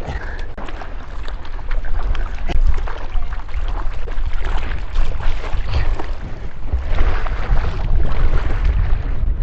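Wind buffeting the microphone in a heavy low rumble, with water splashing and sloshing in many short bursts on the open ocean.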